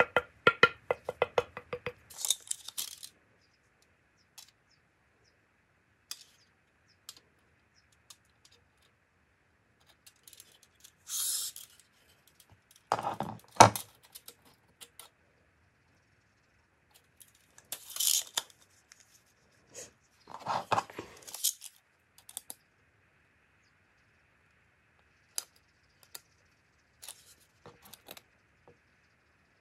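A steel tape measure is pulled out and slid along a plastic-handled hatchet, making short zipping bursts, clicks and small taps against the tool and tabletop. The loudest sound is a sharp knock about a third of the way through.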